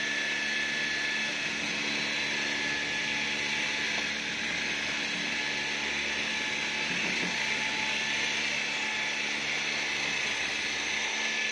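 A steady mechanical whir and hiss from a running machine, unchanging in level.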